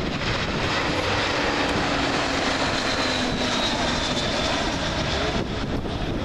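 Jet engines of an Airbus A320-family twin-jet airliner on landing approach passing low overhead, a steady rumble with a faint whine that sinks slowly in pitch as it goes by.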